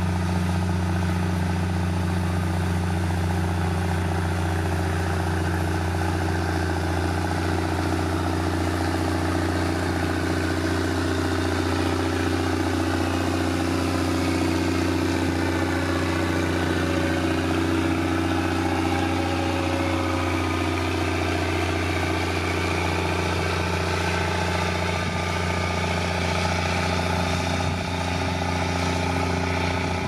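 Heavy diesel engine of a road-construction machine running steadily at constant speed, with a fainter higher whine that wavers in pitch partway through.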